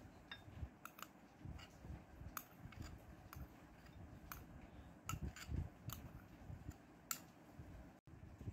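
Faint, sharp clicks of a spoon and ceramic bowl knocking as chopped onion is tipped and scraped into a ceramic dish, about a dozen spread irregularly, with soft low thumps of handling in between.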